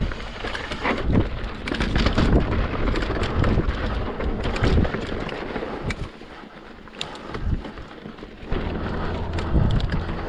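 Mountain bike riding over rough rock: a steady rumble from the tyres and wind buffeting the microphone, with frequent sharp knocks and rattles from the bike. It eases for a couple of seconds past the middle, then picks up again.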